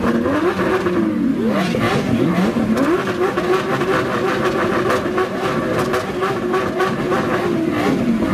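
Lamborghini Aventador SVJ's V12 engine being revved while parked: a few quick blips rising and falling in pitch, then held at a steady high rev for about five seconds before dropping back near the end.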